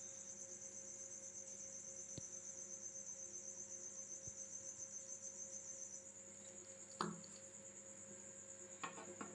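Kitchen knife slicing through a homemade chicken pepperoni log, its blade knocking the plastic cutting board: a light knock about two seconds in, the loudest knock about seven seconds in, and a few quick taps near the end. A faint, high, steady pulsing trill runs underneath and steps up in pitch about six seconds in.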